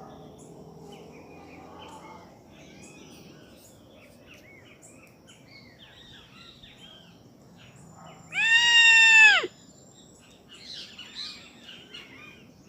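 Birds chirping and twittering, many small calls over a faint steady high whine. Near eight seconds in comes one loud drawn-out animal call of about a second, holding its pitch and then dropping away at the end.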